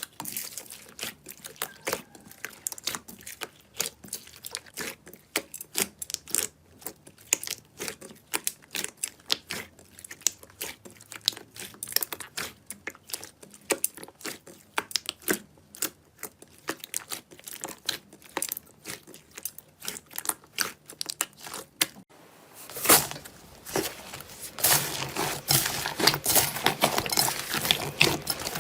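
Slime being played with, giving many sharp crackles and pops. About 22 s in the sound changes to a denser, louder crackling.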